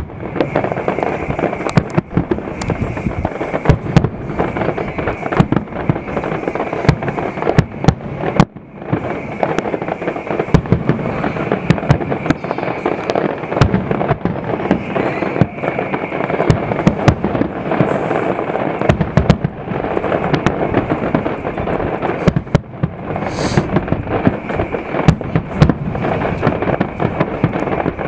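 Fireworks display: aerial shells bursting in rapid succession, a steady crackle packed with many sharp bangs. There is a brief lull about eight seconds in.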